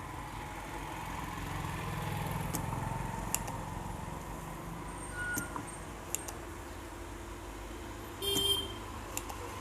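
Steady background traffic rumble with a short vehicle-horn toot near the end and a few sharp clicks.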